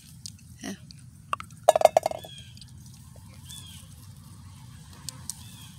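Metal pruning shears clicking and clattering among jujube branches, with a short burst of sharp clicks about two seconds in. A few faint high chirps come and go.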